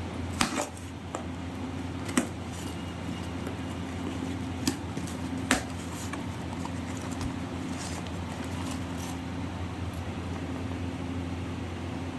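A phone box and its packaging being handled, giving a few sharp clicks and taps about half a second, two seconds, four and a half and five and a half seconds in. Under them runs a steady low hum like a fan or air conditioner.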